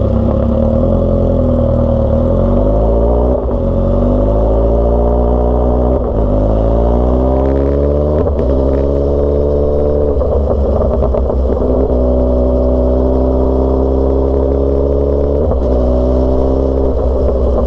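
Loud motorcycle engine accelerating through the gears. The pitch climbs and drops back at each shift, about 3, 6 and 8 seconds in, then holds steady at cruising speed, with another change in pitch near the end.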